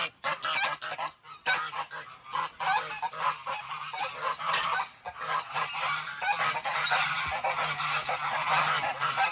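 A group of domestic geese honking and calling over one another in many short, overlapping calls.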